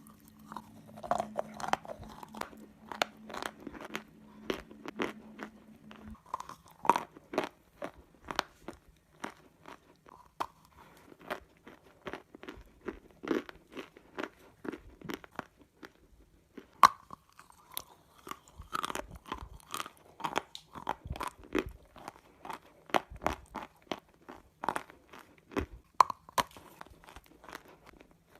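Close-up biting and chewing of something hard and brittle: sharp, irregular crunches, about one or two a second. A faint steady hum stops about six seconds in.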